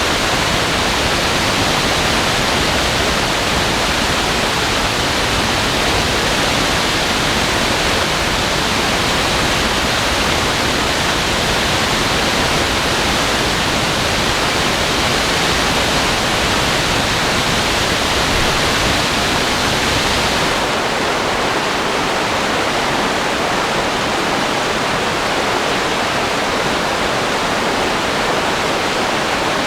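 Creek swollen by days of heavy rain, roaring: a loud, steady rush of water. About twenty seconds in the sound changes abruptly, with less low rumble and less hiss on top.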